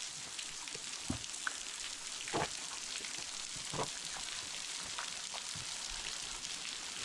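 Waterfall, a steady hiss of falling and splashing water, with a few short sharp knocks over it, the loudest about two and a half seconds in.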